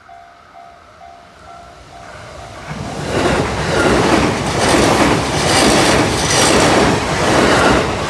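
Level crossing warning bell ringing about twice a second. From about three seconds in, a JR Nambu Line E233-series electric train passes close by, loud, with a regular clatter of its wheels on the rails that drowns the bell.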